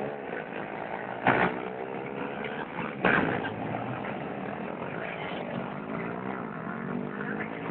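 Several small motorcycles and scooters running and revving on the road, their engine notes rising and falling as they pass. Two short, loud blasts stand out, about a second in and about three seconds in.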